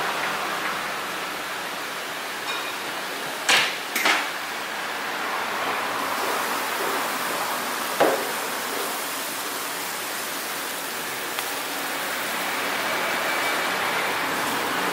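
A steady hiss of background noise with three sharp knocks: two close together about three and a half seconds in, and one more about eight seconds in.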